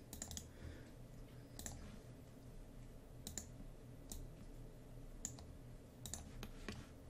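Faint, scattered clicks of a computer mouse, about eight or nine at irregular intervals, over a low steady hum.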